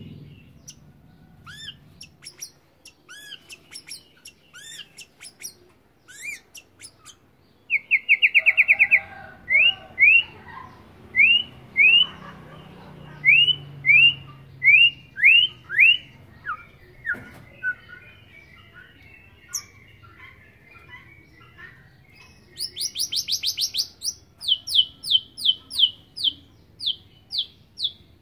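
Young male white-rumped shama singing in short, broken phrases while still learning its song. Scattered soft notes give way to a loud rapid trill, then a run of repeated rising whistles and some chattering. Near the end comes a fast high burst, followed by sharp notes about two a second.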